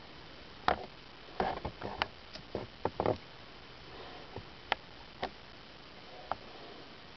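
Handling noise from a camera held to a microscope: irregular light clicks and taps, a quick cluster of them in the first half and a few spaced ones after, over a steady faint hiss.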